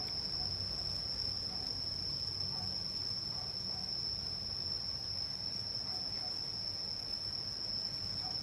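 Insects droning in one steady, unbroken high-pitched tone, over a faint low steady hum.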